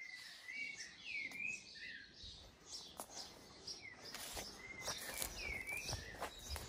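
A songbird singing faintly, repeating short whistled phrases, with a few soft clicks and low thumps scattered through.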